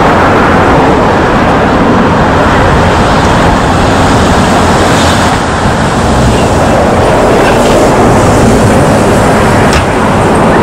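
Airbus A321 airliner's jet engines during touchdown and landing rollout: a loud, steady rushing noise.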